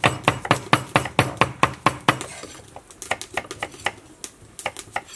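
Knife chopping cucumber on a wooden cutting board in quick, even strokes, about six a second. After about two seconds the chops turn softer and less regular.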